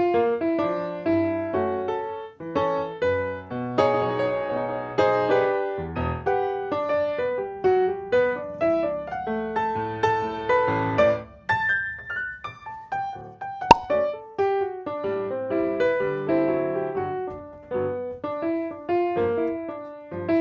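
Background piano music: a steady run of struck notes in a light melody. A single sharp click about two-thirds of the way through.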